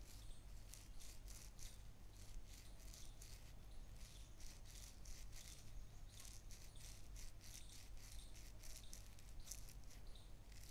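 Near silence: faint room tone with a low hum and soft, irregular high-pitched ticks and crackles.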